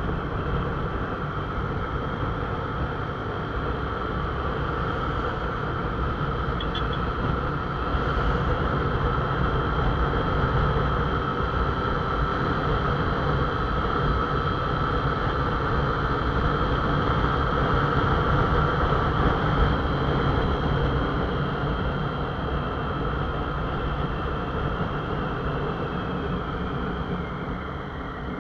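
Motorcycle engine running steadily while riding at road speed, mixed with wind and road noise on the microphone. It grows a little louder through the middle and eases off near the end.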